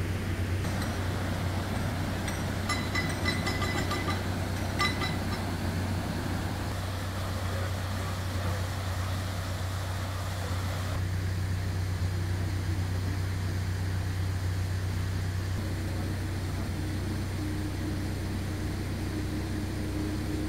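Narrowboat's diesel engine running steadily at low revs in the lock, a low hum. A run of short high clicks sounds about two to five seconds in.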